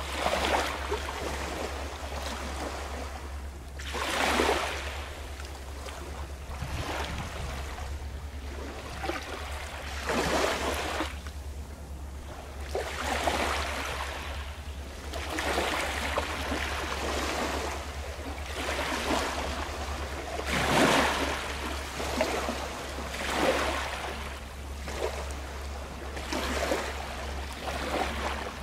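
Small waves washing against the shore, each wash swelling and falling away every few seconds, over a steady low rumble.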